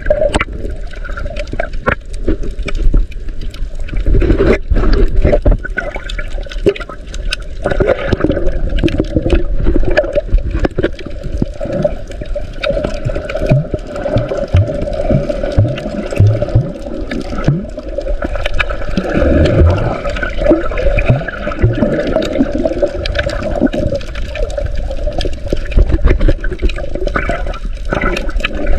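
Water sloshing and gurgling, heard through a camera held under the sea, with short knocks and bubbling blips throughout.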